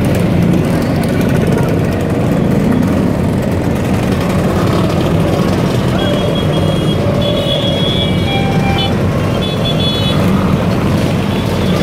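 A stream of scooters, many of them classic Vespas, riding past one after another, their small engines running in a steady mixed drone. A few short high-pitched beeps come through about six to nine seconds in.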